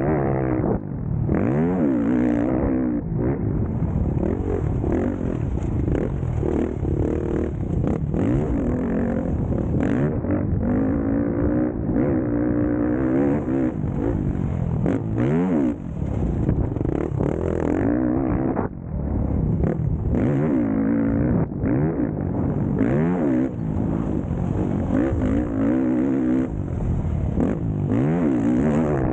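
Motocross dirt bike engine ridden hard: its pitch climbs and drops again and again as the throttle is opened and closed through the gears, with short dips at the shifts and off-throttle moments. Heard close up from the bike itself, with rattle and rushing air.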